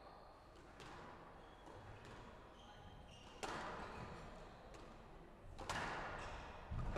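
Squash ball struck by rackets and hitting the court walls during a rally: sharp smacks a couple of seconds apart, each ringing on in the hall, the loudest in the second half.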